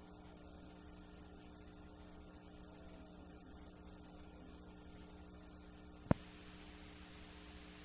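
Faint steady electrical hum from a blank stretch of videotape, with a single sharp click about six seconds in.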